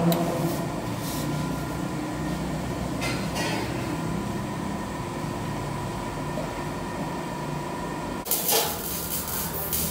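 A steady mechanical hum with a few faint knocks, then a loud hiss that starts suddenly about eight seconds in.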